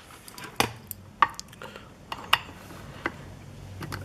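Sharp metallic clicks and clinks of a flathead screwdriver and a lock being handled, metal tapping on metal about six times at irregular intervals.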